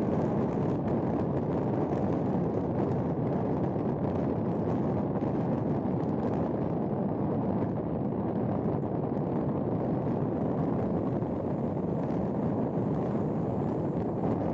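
Steady rushing noise of a vehicle driving along a highway: tyre and wind noise with no distinct events.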